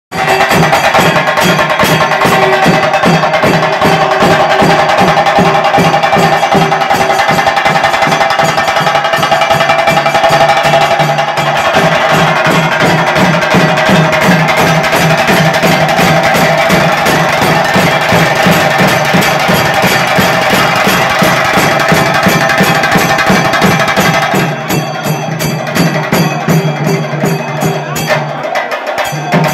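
Fast, loud percussion music with drums keeping a steady rapid beat over a held steady tone. About 24 seconds in, the high, bright part thins out and it gets a little quieter.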